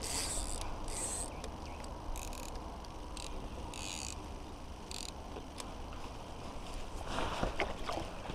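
A spinning reel cranked in short bursts as a lure is retrieved, over a steady low wind rumble. Near the end there is a short splash at the water's surface as a fish swirls at the lure.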